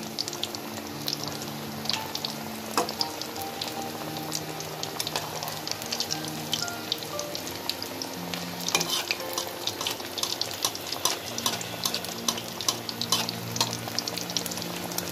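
Breaded chicken nuggets deep-frying in hot oil in a karahi: a steady crackling sizzle full of small pops.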